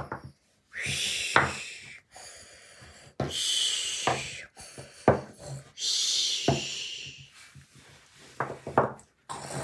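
Small toy figurines knocking and clicking against a tabletop as they are set down and moved. Between the knocks come soft hissing stretches, rubbing or breathy, that recur about every two and a half seconds.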